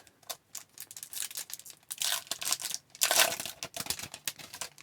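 A foil trading-card pack wrapper being torn open and crinkled by hand, a rapid run of sharp crackles that is loudest about three seconds in.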